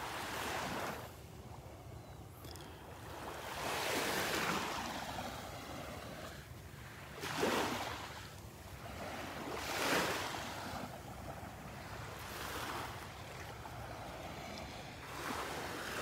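Small, gentle waves of a calm sea washing onto a sandy beach, one soft wash every two to three seconds.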